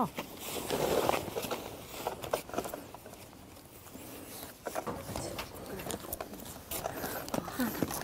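Cloth rustling and small knocks of a bamboo pole as a large fabric banner is handled and tied onto the pole.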